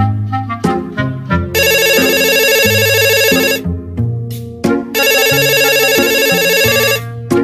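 Mobile phone ringing with a trilling electronic ringtone in two bursts of about two seconds each, over background music.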